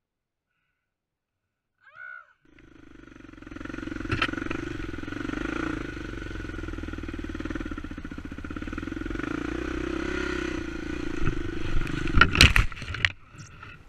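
Dirt bike engine running and revving through a forest singletrack, heard from a helmet-mounted camera, after a couple of seconds of near silence. About twelve seconds in come several loud, sharp knocks and clatters, the sound of the bike crashing.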